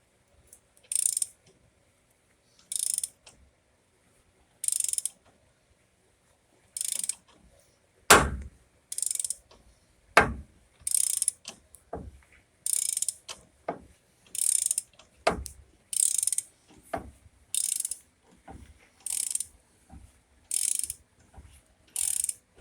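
A ratchet wrench clicking in repeated strokes as it turns the screw of a C-clamp ball joint press, pressing out the lower ball joint of a 2006 Ford F-150. The strokes come about every two seconds at first, then about once a second. Several sharp knocks sound as the press takes up load, the loudest about eight seconds in.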